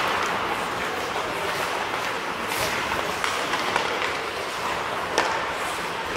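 Ice hockey skates scraping across the rink ice during play, a steady hiss, with a couple of sharp clacks of sticks and puck.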